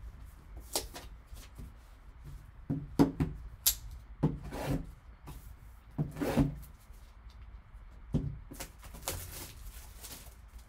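Scattered handling noises: a plastic-wrapped cardboard card box is cut open with a pocket knife and moved about. There are short crinkling and scraping rubs of the wrapper and card, and light knocks of the box on the table, about eight of them over the ten seconds.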